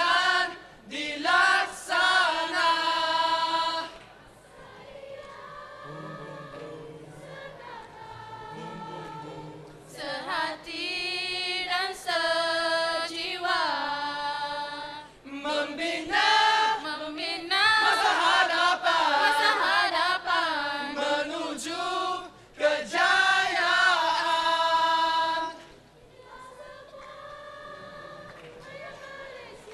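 Mixed choir of men's and women's voices singing, with no instruments to be seen. Full, loud passages give way to softer ones, about four to ten seconds in and again for the last few seconds.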